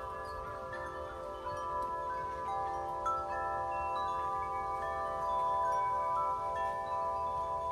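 Chimes ringing: many overlapping, sustained tones that hang and slowly fade, with new notes entering every second or so.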